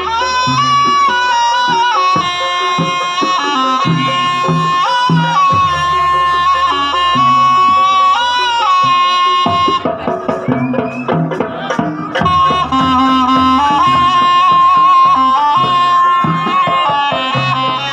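Jaranan gamelan music: a shrill, sustained reed melody from the slompret over kendang drum patterns and a low gong drone. The reed line breaks off for about two seconds midway, then comes back in.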